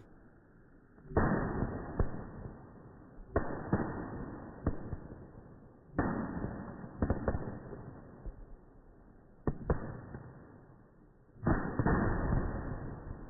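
Diwali firecrackers going off five times, each a sharp bang followed by a second or two of fading hiss with smaller cracks inside it.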